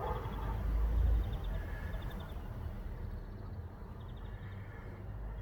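Low rumbling background noise, loudest in about the first second, with a few faint high ticks.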